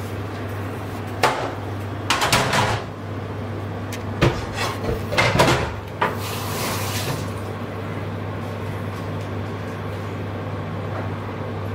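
Kitchen containers being handled as spices are got ready: a few sharp knocks and short clinking clatters, with a brief hiss about six seconds in, over a steady low hum.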